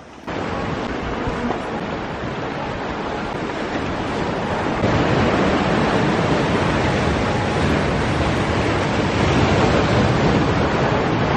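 Sea waves surging and breaking on a rocky shore, a steady rush of surf that gets louder about five seconds in.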